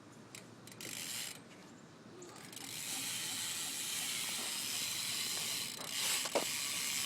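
BMX rear hub, a Primo Mix, ticking as the back wheel is spun: a few separate clicks at first, then from about two and a half seconds in a fast, continuous buzz of the freewheel pawls. There is a single knock near the end.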